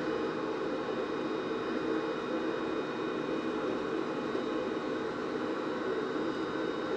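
Steady mechanical hum and hiss of an argon glovebox's gas-circulation blower, with a few faint steady high-pitched tones over it.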